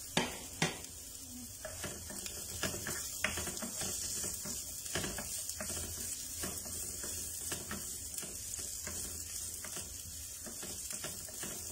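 Garlic, onion and fresh ginger sautéing in hot oil in a frying pan: a steady sizzle, with a spatula stirring and scraping the pan in scattered clicks and two sharper knocks just after the start.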